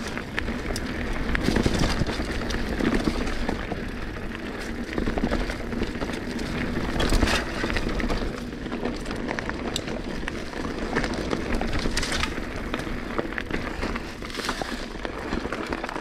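Mountain bike riding along a dirt trail: a steady low rumble of tyres and wind with frequent clicks and rattles from the bike.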